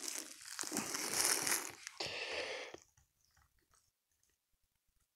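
Rustling, crunching handling noise close to the microphone as the camera and saw are held and shifted. It cuts off suddenly about three seconds in, leaving only a few faint ticks.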